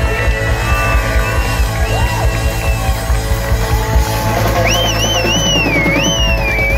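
Live rock band playing, with a drum kit keeping a steady beat under electric guitars. A high, wavering melody line comes in about five seconds in.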